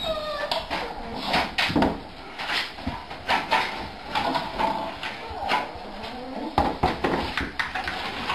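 Metal food bowls clattering and knocking on a wooden floor as they are set down, with short high whines and cries from the waiting dogs and cats.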